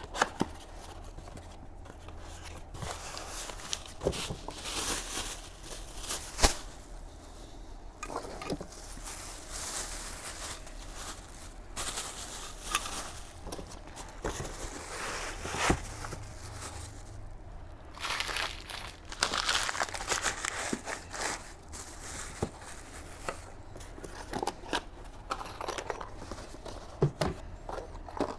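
Packaging being handled and sorted: irregular crinkling and rustling of cardboard and wrapping, with scattered knocks as things are set down.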